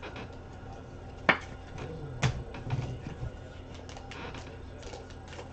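Foil trading-card pack crinkling and clicking as it is handled in the hand, with two sharp taps about a second in and again a second later.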